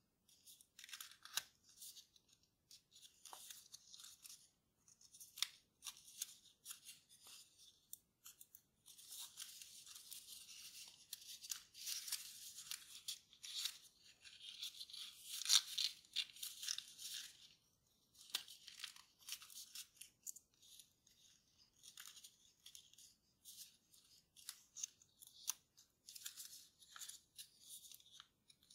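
Kraft paper rustling and crinkling as it is folded and creased by hand: short scratchy bursts and small crackles, with a denser, louder stretch of rustling around the middle.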